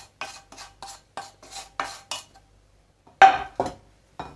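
Wooden spoon scraping the inside of a nonstick frying pan in quick short strokes, about three a second, clearing out the last of the spiced oil and toasted sesame seeds. Just after three seconds in comes a loud knock as the pan is set down on a granite worktop, then a smaller knock and another near the end.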